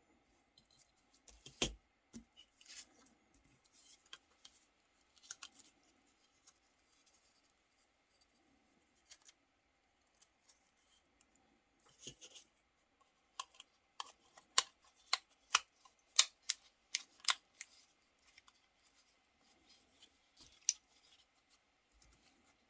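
Plastic and metal parts of a Nokia 3310 mobile phone being handled, with scattered sharp clicks and taps and a quick run of clicks about two-thirds of the way through.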